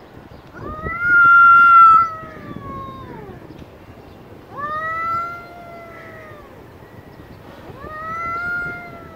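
Domestic cat yowling three times, long drawn-out calls that rise at the start and then slowly fall in pitch, the first the loudest: the threat yowls of a cat squaring off with a rival before a fight.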